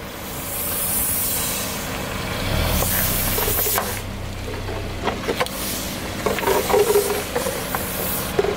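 Car engine idling while its tyre rolls slowly over a row of inflatable vinyl toys and squeezes them flat: a hiss about three seconds in, then a run of squeaks and sharp clicks from the plastic in the second half.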